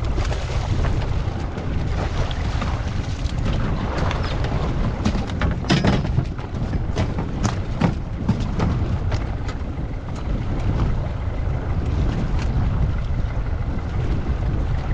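Wind rumbling on the microphone aboard a small fishing boat at sea, with a cluster of sharp knocks and clicks in the middle as a fish is handled at the rail.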